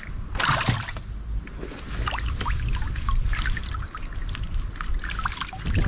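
Canoe paddle strokes: water splashing and trickling off the paddle blade in short irregular spurts, over a low steady rumble.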